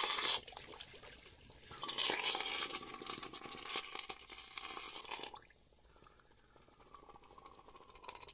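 Hot casting flask quenched in a bucket of water: the water boils and bubbles around it as the investment plaster breaks away from the flask. Loud surges at the start and again from about two seconds in, dying down after about five seconds.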